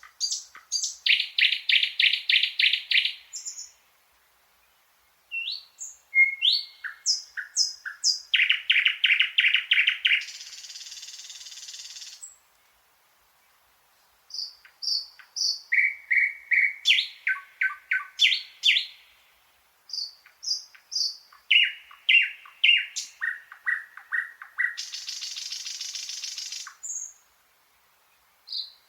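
Thrush nightingale singing: loud phrases of rapidly repeated notes, two of them ending in a dry, buzzing rattle, with pauses of a second or two between phrases.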